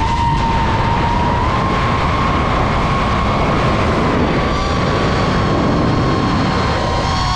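DJI FPV drone's motors and propellers whining in flight: a steady tone that drifts slightly higher, over a loud rushing noise, with higher overtones joining about halfway through.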